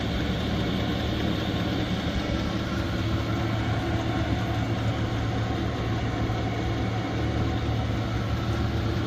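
Chinese diesel air heater running at high output: a steady whoosh from its blower and burner over a low hum, sounding like a jet engine about to take off.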